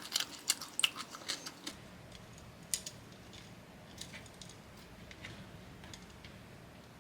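Close-up crunchy chewing of bamboo shoot papaya salad: a quick run of crisp crunches for the first second and a half or so, then softer chewing with only a few scattered clicks.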